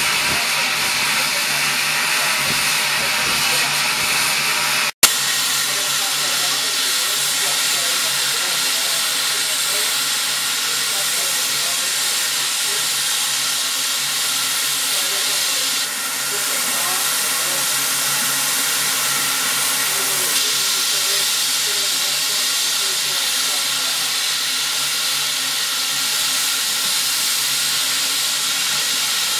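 Steady hiss of steam escaping from low down at the front of a stationary SECR H-class 0-4-4T steam tank locomotive.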